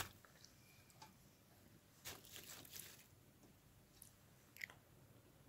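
Mostly near silence, with a few faint soft squishing and rustling noises as raw chicken halves are set down onto sliced raw onions in a pot, and light clicks at the start and end.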